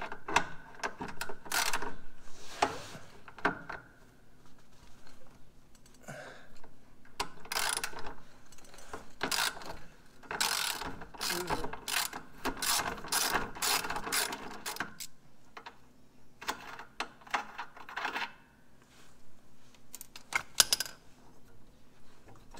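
Socket ratchet with a 13 mm socket clicking in several short runs of rapid clicks, working the bolt of a drive-belt idler pulley, with metal handling clinks between the runs.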